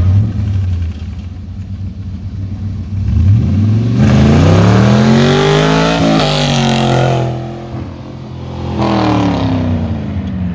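A 1999 Chevy S10 pickup's carbureted 4.8-litre V8 with headers accelerates hard toward and past. The engine note climbs in pitch, is loudest as the truck goes by, then drops in pitch. It dips briefly, picks up again and fades as the truck pulls away.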